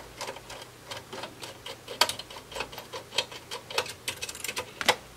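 Small metal clicks and taps, irregular, with a few sharper ones, as a small screwdriver works loose the little screw of a metal display bracket inside an electronic instrument's chassis.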